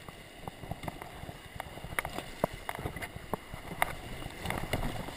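Kayak being paddled into a small river rapid: water splashing and rushing along the hull, with scattered sharp ticks and knocks. The rush of water grows a little louder near the end.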